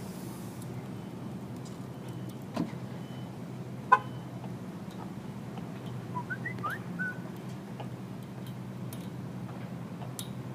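Lock-picking tools working a vintage brass padlock: a light click, then a louder ringing metallic click a little later, over a steady low hum. About six seconds in there is a brief run of short rising chirps.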